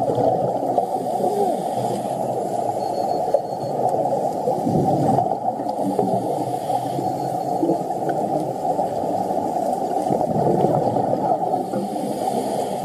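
Underwater sound of scuba divers' exhaled air bubbling and gurgling, heard as a muffled, continuous churn.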